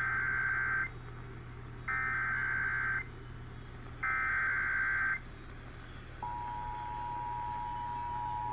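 Emergency Alert System SAME header: three bursts of buzzy digital data tones, each about a second long and about a second apart, that encode the severe thunderstorm warning. About six seconds in, the steady EAS two-tone attention signal starts and holds.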